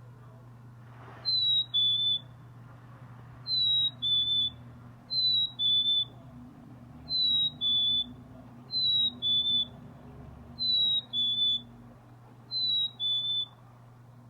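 A bird's clear two-note whistled song, a higher note followed by a slightly lower one, repeated seven times about every two seconds.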